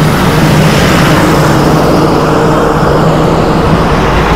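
Car on the move, heard from inside the cabin: steady road and engine noise with a low hum.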